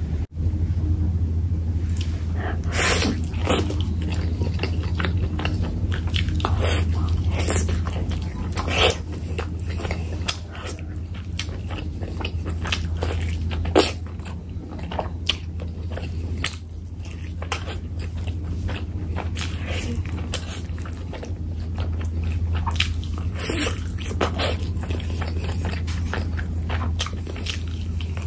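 Close-miked biting and chewing of curried chicken drumsticks eaten by hand: scattered short sharp clicks and mouth sounds over a steady low hum.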